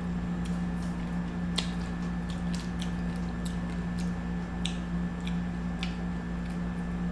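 Close-up eating sounds of someone chewing seafood: an irregular string of short clicks and smacks from the mouth, a few a second, over a steady low hum.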